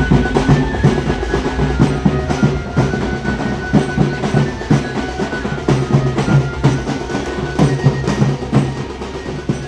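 Music driven by fast, rhythmic drumming and percussion, with dense repeated strikes throughout.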